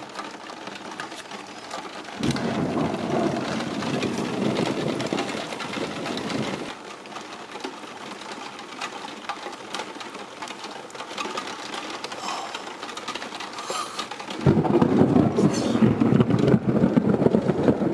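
Thunderstorm: steady rain, with loud low rumbles of thunder. The first starts suddenly about two seconds in and lasts about four seconds; the second breaks in near the end.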